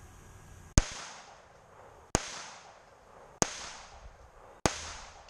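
A GSG Firefly .22 pistol firing four single shots, about one and a quarter seconds apart, each with a short echoing tail.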